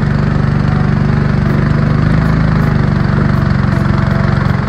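Longboat outboard motor running steadily under load, pushing upstream against a strong current; its level dips briefly near the end.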